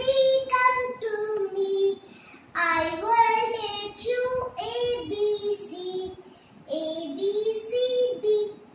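A young girl singing a nursery rhyme in a high, sing-song voice, in short phrases with brief pauses about two seconds and six seconds in.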